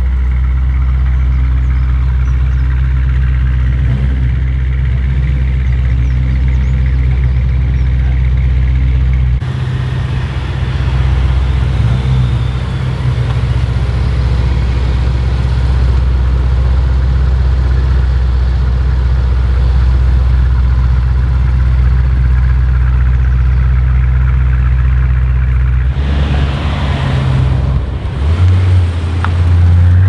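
ABT-tuned Audi RS6-R Avant C8's twin-turbo 4.0-litre V8 idling steadily through its OPF-deleted exhaust, then pulling away gently near the end with a small rise in engine note.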